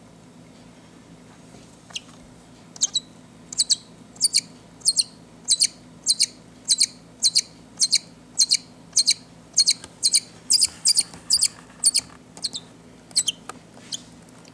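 Baby bird calling: a long run of short, sharp, high-pitched cries, about two a second, starting a couple of seconds in.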